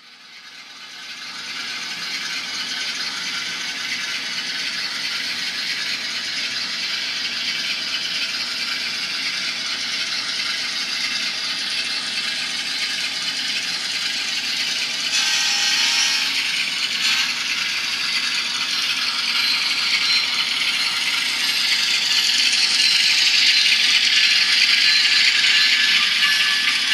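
LokSound Micro sound decoder in an N scale GE ES44AC GEVO model locomotive, playing the diesel engine sound through a tiny speaker: thin and high-pitched, with a rattly edge. It fades in at the start and grows slowly louder.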